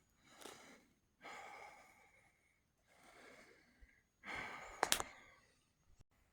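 A man breathing hard while slowly climbing a slope on foot: three faint breaths, with a single sharp tap just before the five-second mark.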